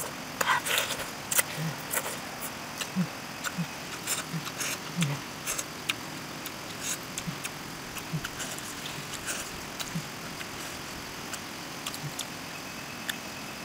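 Close-up eating sounds: irregular wet clicks and lip smacks of chewing, a few to the second, with soft low blips between them.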